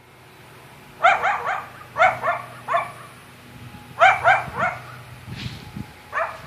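A dog barking in short, high yaps, in quick runs of three or four, several runs over a few seconds.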